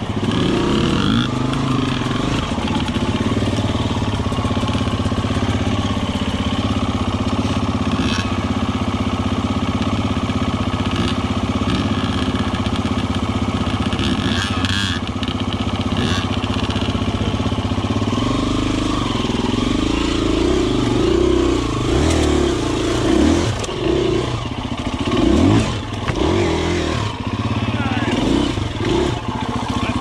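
Four-stroke single-cylinder dirt bike engine (KTM 250 EXC-F) running steadily at low revs, then revved in a series of short throttle blips from about two-thirds of the way in.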